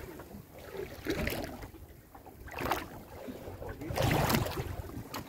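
Wind buffeting the microphone in irregular gusts over water washing along the hull of a small open wooden boat at sea, with the strongest, rumbling gust about four seconds in.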